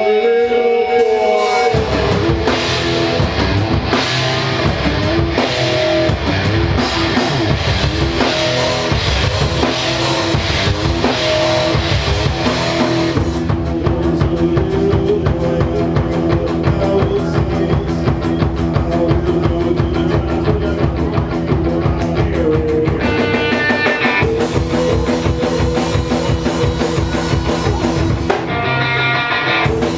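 Rock band playing live: guitar over a full drum kit, with the drums coming in about a second and a half in.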